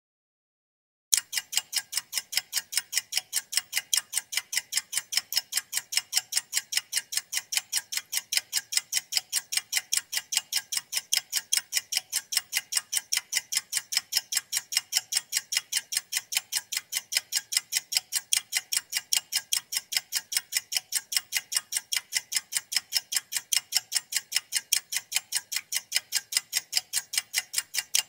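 Mechanical stopwatch ticking: rapid, crisp, evenly spaced ticks, about five a second, starting about a second in and keeping a steady beat.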